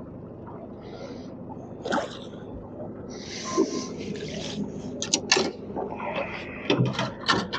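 Outboard motor running steadily at trolling speed, with bursts of splashing as a small brown trout thrashes at the surface beside the boat, and a run of sharp knocks over the last two seconds or so.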